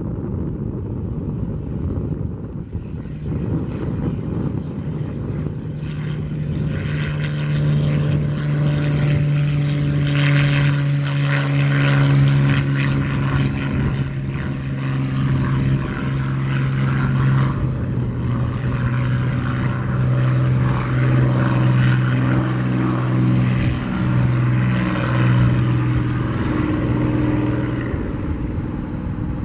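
Supermarine Spitfire's piston engine running at full power as it takes off and climbs away, a deep steady propeller-driven drone that grows louder over the first few seconds and dips slightly in pitch as the plane passes.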